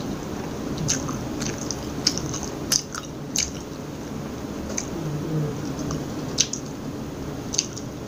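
Close-miked chewing with the mouth closed: about seven scattered sharp wet clicks spread over several seconds, over a steady low hum.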